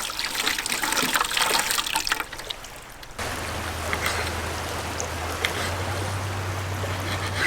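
Water trickling and splashing with many small clicks. About three seconds in it cuts to a steady wash of noise with a low hum under it.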